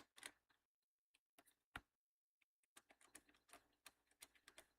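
Faint, irregular clicks and ticks of a small screwdriver working a laptop case screw and handling the plastic case, with a busier run of small clicks over the last two seconds. The screw is not coming back out.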